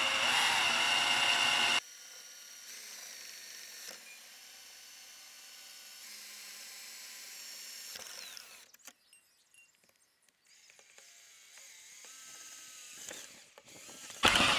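Cordless drill running at speed as it bores through the plastic door of a chicken coop, cutting off abruptly about two seconds in. After a quieter stretch the drill starts again on the next hole near the end, louder and rattling.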